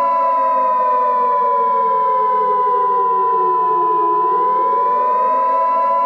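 Civil defense siren wailing, its pitch sliding down for about four seconds and then rising again, over a steady pure high tone.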